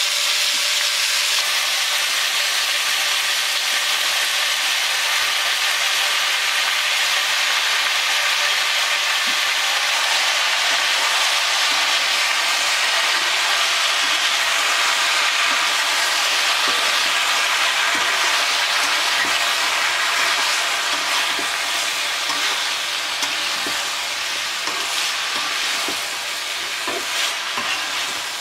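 Chopped vegetables sizzling steadily in hot oil in an iron wok. In the later part, a metal spatula scrapes and taps against the pan as they are stirred.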